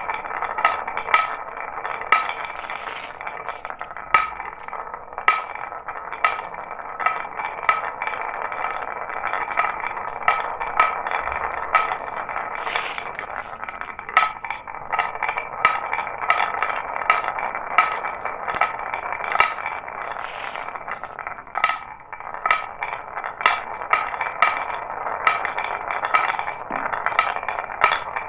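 Glass marbles rolling and clattering down a marble run track: a continuous rolling rattle with clinks, and sharper clicks about once a second.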